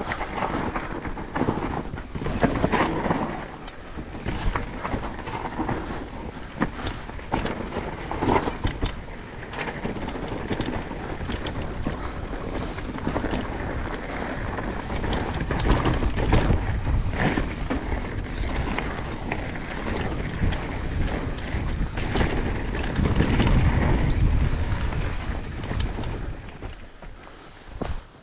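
Mountain bike descending a rough dirt trail at speed: wind buffets the microphone while the bike rattles, with many short knocks from bumps along the way.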